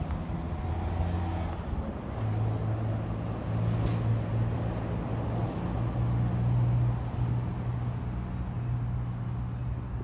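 An engine running steadily, a low hum that steps up slightly in pitch about two seconds in.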